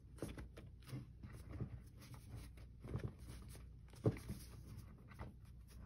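Hands rubbing, pressing and shifting a fabric-covered book spine on a tabletop: soft, irregular scratches and rustles of fingers on fabric, with a sharper tap about four seconds in.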